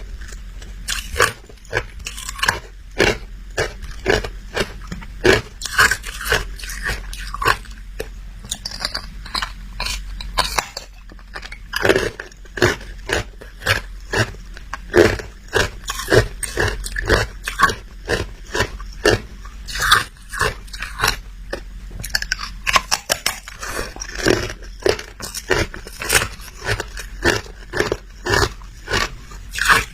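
A person biting and chewing hard ice close to the microphone: quick, irregular crunches and cracks, several a second.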